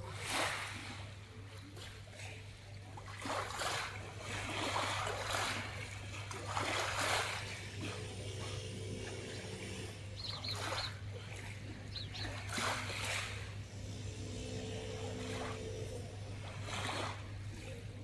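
Small waves lapping and washing over a pebble shore, a soft swish every second or two, over a steady low hum.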